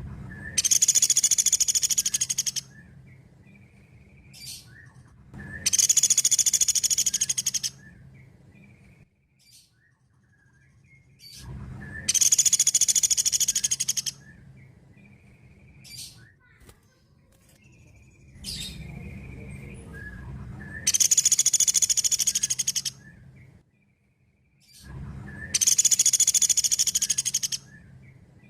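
Pelatuk beras woodpecker calling: a loud, high, rapid trill about two seconds long, given five times, with short softer notes between the trills.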